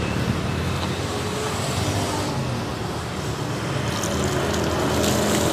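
Water poured from a plastic bucket over a person's head and splashing down onto the ground, with the splashing growing louder near the end. A steady low hum runs underneath.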